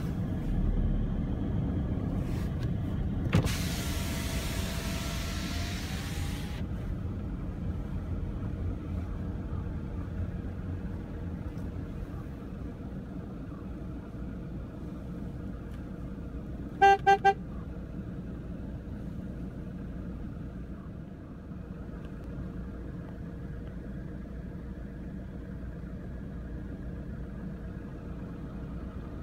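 A car running, heard from inside the cabin as a steady low rumble. About three seconds in, a power window whirs down with a rush of outside air for about three seconds. About 17 seconds in, the car horn gives three quick toots.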